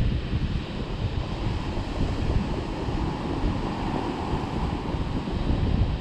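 Waves breaking on a rocky shore, with wind buffeting the microphone as a steady low rumble. The surf swells louder through the middle.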